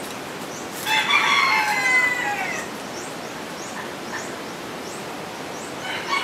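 A rooster crowing once, about a second in: one long call of nearly two seconds that falls in pitch at the end.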